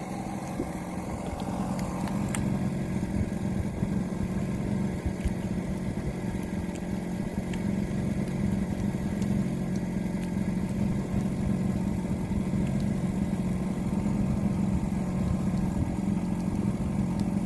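A boat's engine running steadily with an even low hum.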